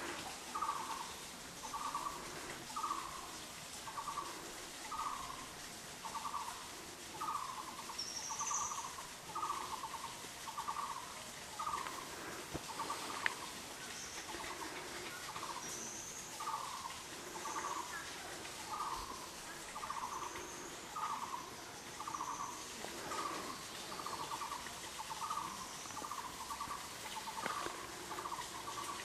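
An animal calling steadily: a short buzzy note repeated about once a second, with a few faint high chirps over it now and then.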